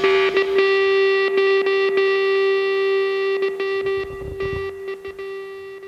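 Outro music: a distorted electric guitar holds one ringing note that fades out over the last couple of seconds.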